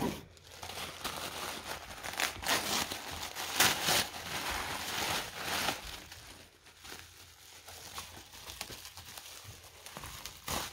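Tissue paper and bubble wrap crinkling and rustling as hands unwrap a packed figurine, busiest in the first half and softer after, with a short louder crinkle near the end.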